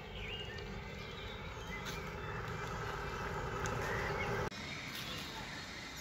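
An engine running steadily outdoors, its tone rising slightly, then cut off abruptly about four and a half seconds in, leaving quieter outdoor background.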